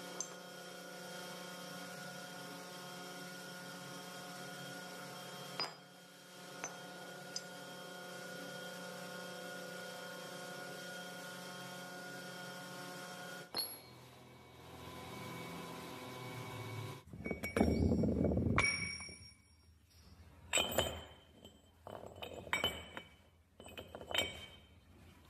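A machine runs with a steady hum of several fixed tones for about half the time, then the sound changes. From about two-thirds of the way in, metal parts clink and knock, each strike ringing briefly.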